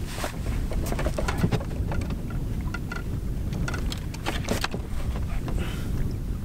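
Wind buffeting the microphone in a steady low rumble, with scattered light clicks and knocks as anchor gear is handled in a small plastic boat.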